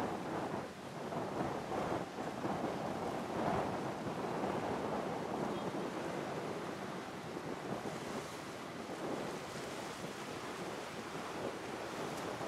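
The four turbofan engines of a Boeing C-17A Globemaster III in flight overhead: a steady rushing jet noise with no distinct tones, swelling and easing slightly.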